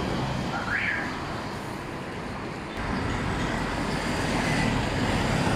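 Steady traffic noise from a busy street, with a short rising tone about a second in.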